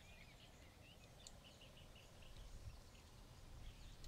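Near silence with faint bird chirps: a few short curving calls in the first half-second, then scattered chirps, over a low background rumble.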